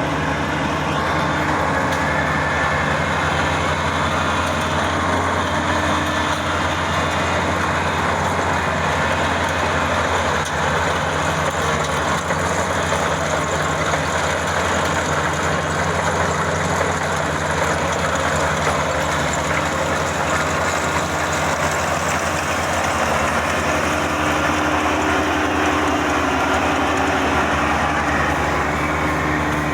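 Kubota DC-35 combine harvester running steadily: the diesel engine's drone under a dense mechanical clatter from its working machinery.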